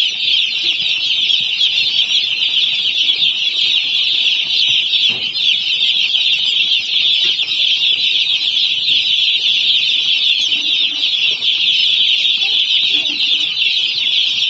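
Hundreds of day-old broiler chicks peeping together in a brooder: a dense, steady, high-pitched chorus.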